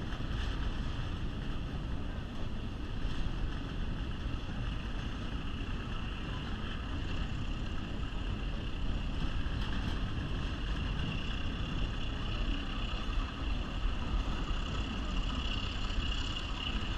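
Steady rumble of a passenger train rolling along the rails, heard from an open-air car.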